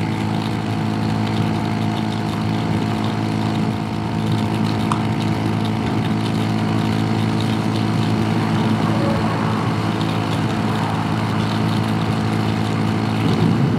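Honda Super Cub C125's single-cylinder four-stroke engine running under load at a steady pitch while climbing a steep grade, over a steady rushing noise of wind and road.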